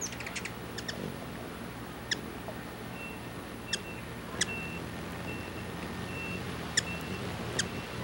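Hummingbirds at a feeder giving sharp chip calls: a quick cluster at the start, then single chips every second or so. There is a steady low rumble underneath, and from about three seconds in a faint high, steady tone comes and goes in short dashes.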